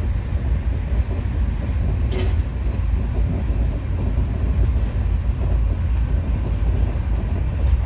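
Steady low rumble of a moving passenger train heard from inside the coach: wheels and running gear noise carried through the floor and body.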